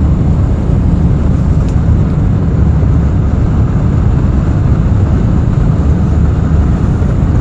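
Steady, loud low rumble of a Boeing 747-400's four turbofan engines and rushing air, heard inside the cabin during the initial climb after takeoff.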